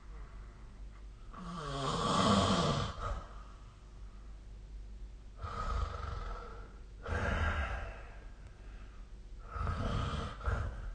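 A sleeping person snoring: a long snore with a falling, rattling tone about a second in, then further snoring breaths, two close together in the middle and one more near the end.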